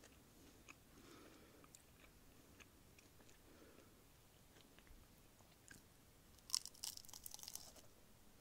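Crisp baked phyllo pastry of a tahini-hazelnut roll crunching and crackling: faint scattered small crackles, then a louder burst of crunching about six and a half seconds in.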